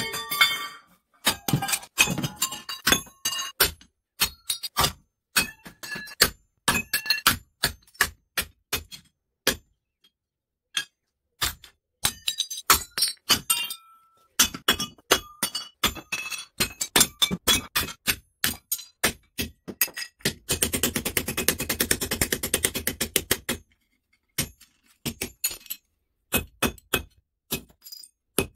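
Hammer blows on cast aluminium electric-motor parts on a metal plate, cracking them into small pieces: a long series of sharp knocks and clinks, with a quick, dense run of blows for about three seconds near the end.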